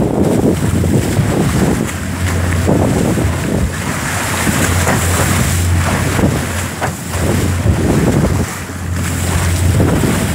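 Wind buffeting the microphone on a moving boat, in gusts, over the rush of water along the hull.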